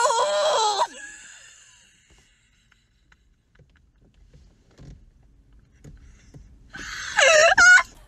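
A young woman's loud, strained singing voice wailing a held note that fades out about a second in, then a quiet stretch, then loud high-pitched laughter in short bursts near the end.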